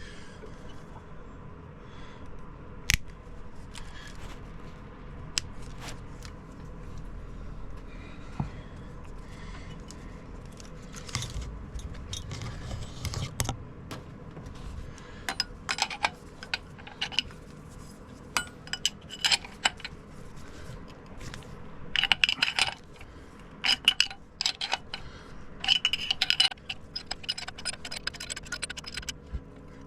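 Metal hand tools clinking, tapping and scraping on metal during engine work, in scattered light clicks that come in dense clusters in the second half.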